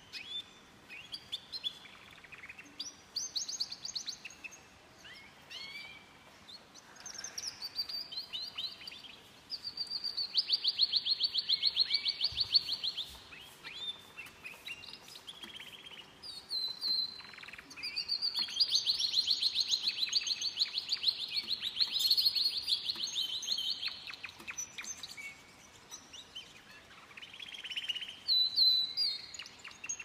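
Domestic canaries singing: short varied warbling phrases broken by long, very fast, even trills. The two longest trills come about a third of the way in and just past the middle, and they are the loudest part.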